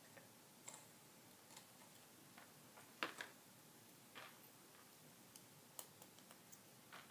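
Faint, irregular clicks of plastic LEGO Technic parts being handled and fitted together, the loudest about three seconds in.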